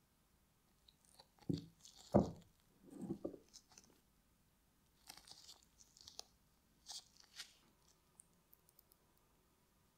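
Gloved hands setting and pressing thin brass plates onto the glued end of a wooden handle: a few soft knocks in the first few seconds, the loudest about two seconds in, then short scraping, rustling handling noises.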